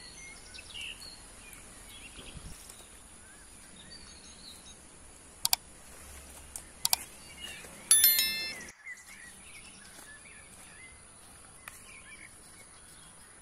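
Rural outdoor ambience: a steady high-pitched insect drone with scattered bird chirps. A few sharp clicks come about halfway through. About 8 s in there is a loud, brief ringing call, and the sound cuts out for a moment just after it.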